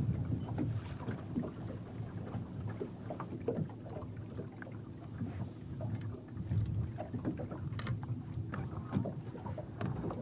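Wind rumbling on the microphone and water lapping against the hull of a bass boat sitting on the lake, with scattered small knocks and taps on the boat.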